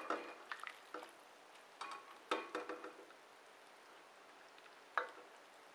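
A ladle knocking against a metal soup pot while scooping soup: a handful of ringing clinks in the first three seconds, then one more about five seconds in.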